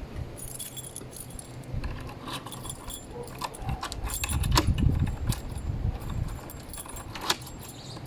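Metal deadbolt lock hardware being handled and fitted, with irregular small clinks, clicks and rattles and a few dull knocks of handling.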